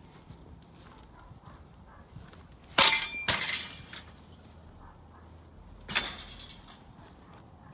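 Two sharp clattering impacts about three seconds apart, the first a quick double hit with a brief ringing clink, each trailing off in a short rattle.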